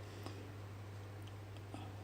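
Quiet room with a steady low electrical hum and a couple of faint ticks, the sound of trading cards being handled.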